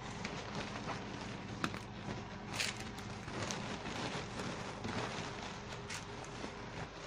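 Rustling and crinkling of white tulle wrapping being handled and folded around a rose bouquet, with a few sharp crackles over a faint steady hum.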